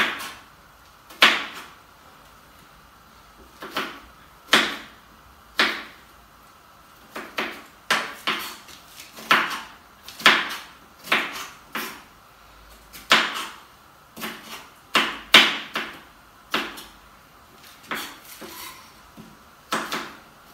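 Kitchen knife chopping tomatoes on a wooden cutting board: a long run of sharp knocks, irregularly spaced at about one a second, coming closer together in the middle.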